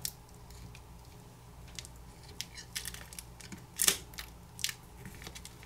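Scattered small clicks and scrapes of a metal pry tool levering the Asus Zenfone 6's battery up off its adhesive, the loudest click about four seconds in.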